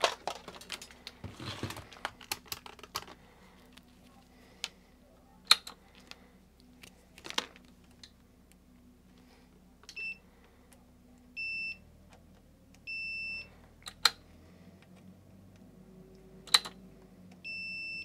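Multimeter continuity tester beeping as its probes touch the new power switch's connections on the circuit board: four short beeps of the same high tone in the second half, unevenly spaced, each marking a good connection. Before and between them, a few sharp clicks and light handling noise as the probes are placed.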